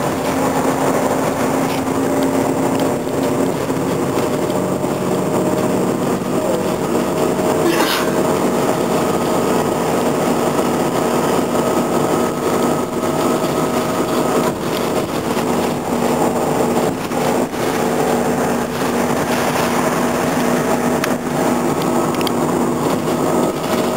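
2008 New Flyer D40LF city bus with its Cummins ISL diesel and automatic transmission, heard from inside the cabin while driving. The steady drone of the engine and drivetrain changes in pitch a few times as the bus pulls along.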